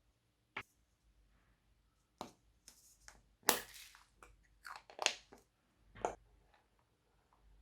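Glossy slime with mixed-in add-ins being squished, folded and pressed by hand, giving short crackling, squelching bursts about five times, the longest and loudest around the middle.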